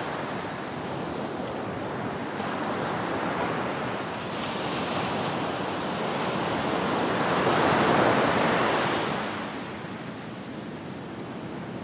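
Ocean waves washing onto a shore: a continuous surf wash, with one wave swelling and breaking loudest about two-thirds of the way through, then receding. Some wind noise on the microphone.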